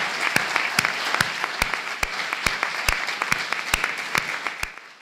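Audience applauding, with one person's claps standing out close to the microphone at a steady two to three a second. The applause dies away near the end.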